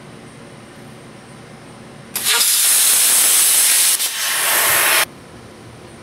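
Handheld plasma cutter cutting 16-gauge cold-rolled sheet steel along a straightedge: a loud, steady hiss of the arc and air starts about two seconds in, dips briefly near four seconds, and cuts off suddenly about five seconds in.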